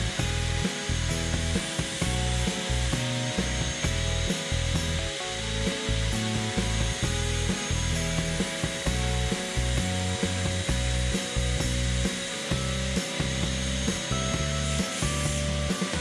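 Background music: held notes that change pitch in steps over a pulsing low bass.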